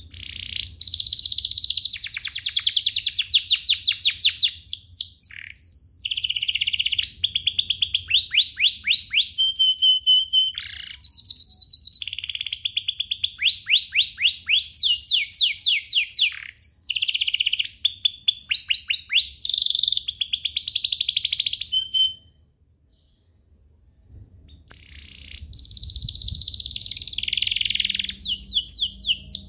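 Domestic canary singing: long fast trills and rolls of rapidly repeated high notes, some sliding in pitch. The song breaks off for about two seconds near the end, then starts again.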